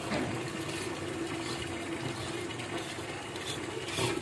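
A stream of water running from a rooftop solar water heater's outlet pipe into a plastic bucket, a steady splashing pour.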